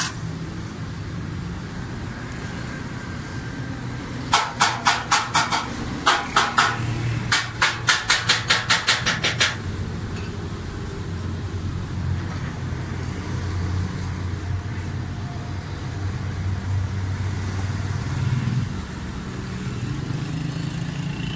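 Suzuki Cultus engine cranked on its starter in three short bursts, a regular pulsing at about five beats a second, without starting. The cranking tests whether the fuel pump now gets current after its blackened wire crimp was redone.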